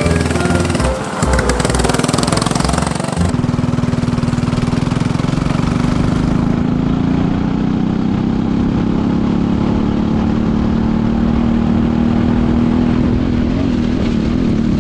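Shifter kart's two-stroke engine heard from on board, running under load, its pitch climbing slowly and then holding roughly steady. The first three seconds are a noisier, busier mix that changes abruptly to the engine sound.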